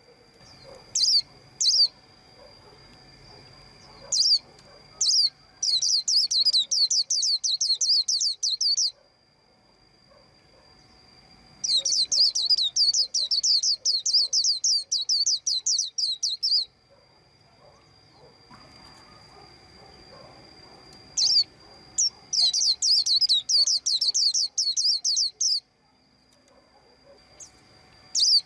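White-eye chirping: scattered single high chirps and three long runs of rapid, repeated high notes a few seconds each, over a faint steady high tone.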